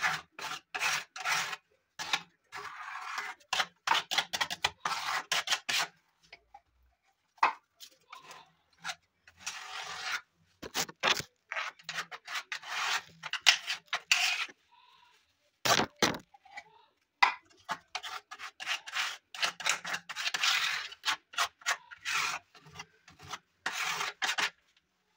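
Hand rubbing hard along a wooden strip in quick back-and-forth strokes, a rough scratching sound that comes in runs of strokes with short pauses between them.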